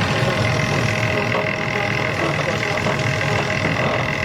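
Potato storage machinery running steadily: a constant low rumble with a steady high whine on top.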